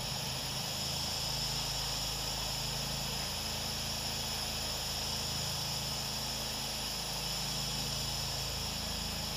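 Pressure washer rinsing a house's siding: a steady hiss of water spraying from the wand over the even drone of the running machine.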